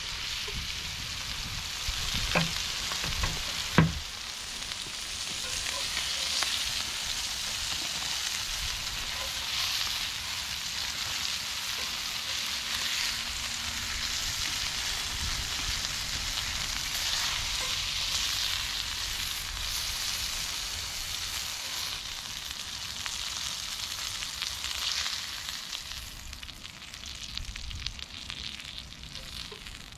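Chicken pieces sizzling in a cast-iron skillet, a steady hiss, with two sharp knocks in the first few seconds. The sizzle dies down near the end.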